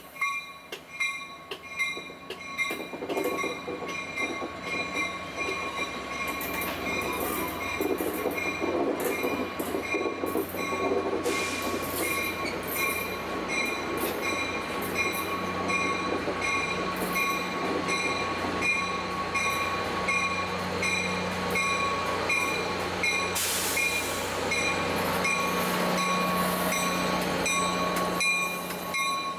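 Caltrain F40PH diesel locomotive moving slowly through the station, its EMD two-stroke diesel engine running under a steady high wheel squeal. The engine hum grows stronger about halfway through, and there are two short bursts of hiss.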